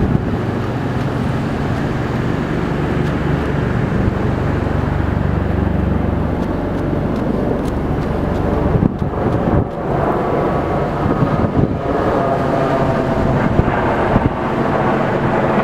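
Steady wind and vehicle noise, with a low engine-like hum in the first six seconds and a higher droning tone from about ten seconds in.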